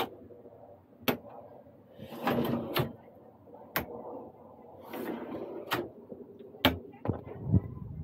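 Cabinet drawers sliding on their runners and shutting, with several sharp clicks as the magnet latches catch each closed drawer.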